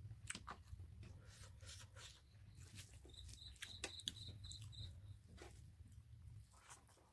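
Quiet, close-up eating sounds: fingers squelching through rice on a plate and wet mouth clicks and smacks while chewing. A brief run of about eight high chirps comes in the middle, over a faint steady low hum.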